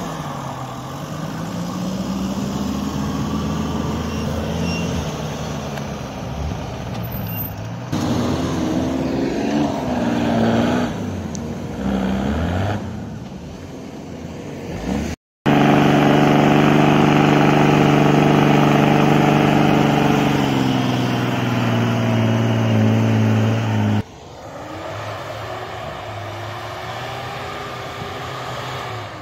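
Off-road 4x4 pickup engines straining through deep snow, in a run of clips that cut from one truck to the next. The loudest stretch, about halfway through, is a strong, steady engine drone that eases off before a cut to a quieter engine.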